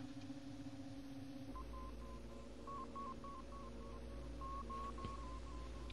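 Faint electronic bleeps: a string of short tones at slightly shifting pitch, a few a second, starting about a second and a half in over a steady low hum, a sci-fi computer sound effect.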